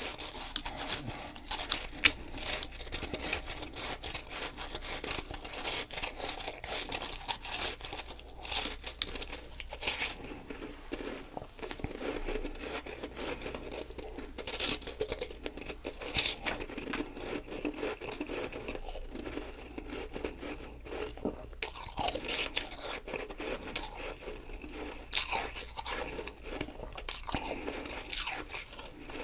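Close-miked chewing of a mouthful of powdery ice, a continuous run of fine crunches and crackles with one sharper crunch about two seconds in.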